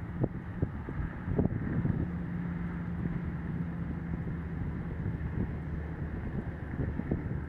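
Firefighting helicopter's steady low drone, with gusts of wind buffeting the microphone.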